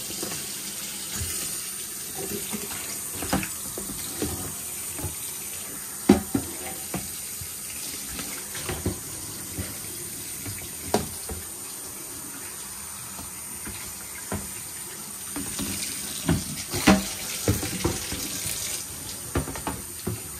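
Kitchen tap running steadily into a sink, with scattered sharp clinks and knocks.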